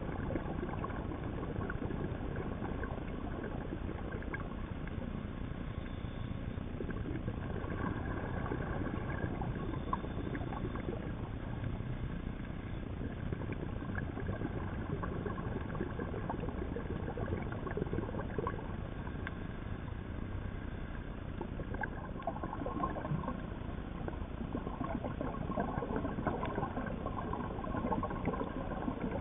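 Underwater ambience picked up by a camera in its dive housing: a steady low rumble with scattered faint crackles and clicks.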